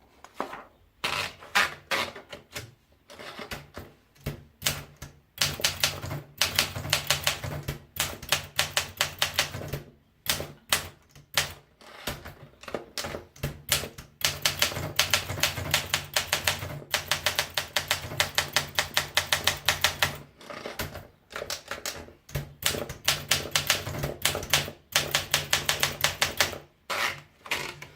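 Olympia SM9 manual portable typewriter being typed on: fast runs of sharp keystroke clacks in bursts of a few seconds, broken by short pauses.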